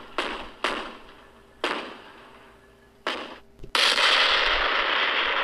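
Battle sound effect of anti-aircraft guns firing: four sharp shots at uneven intervals, each with a short echo. Near the end, a sudden loud blast of a shell bursting, whose noise carries on and slowly fades.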